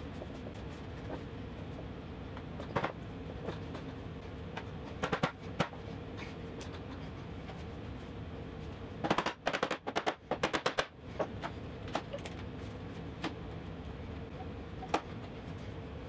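Bar clamps and wooden parts being handled during a glue-up: scattered clicks and knocks over a steady shop hum, with a quick run of rapid clicks about nine seconds in as trigger bar clamps are set and tightened.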